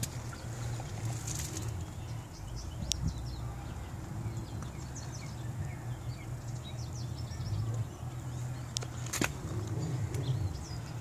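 Small birds chirping over a steady low rumble, with a couple of sharp clicks, one about three seconds in and one a little after nine seconds.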